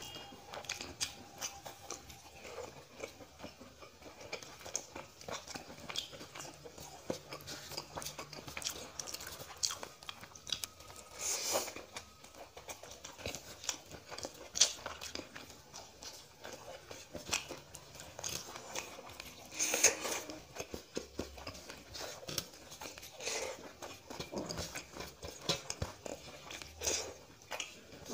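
Close-up eating sounds: a person chewing rice and curry with wet mouth sounds, amid soft clicks and squelches of fingers mixing rice on a metal plate. Two louder noisy bursts stand out, about eleven and twenty seconds in.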